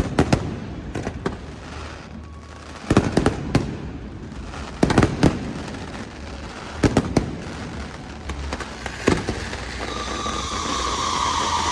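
Aerial fireworks bursting: sharp bangs, often in quick pairs, about every two seconds, over a steady background rumble. Near the end a steady whining hiss builds up.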